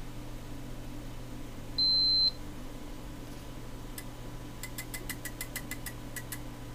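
HP 34970A data acquisition/switch unit powering up: one short, high, steady beep about two seconds in, then a run of about a dozen quick clicks, about six a second, as its relays switch during the power-on self-test. A steady low hum lies under it all.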